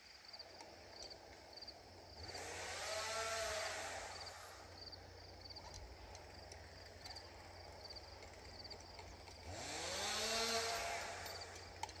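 Chainsaw running at a low idle and revved up twice, a few seconds in and again near the end. Each rev climbs in pitch and drops back over about two seconds.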